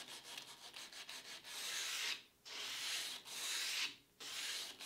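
Hand-sanding the wooden extension slides of an antique dining table with sandpaper, rubbing off old grime so they slide smoothly. It starts as quick short strokes, then goes to three longer back-and-forth strokes with brief pauses between them.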